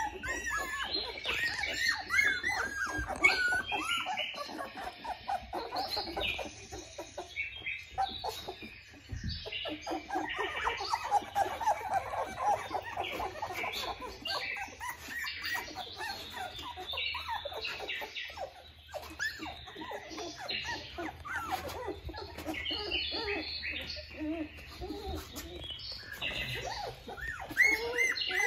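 A litter of young Australian Shepherd puppies squeaking and whimpering, many short high cries overlapping almost without pause.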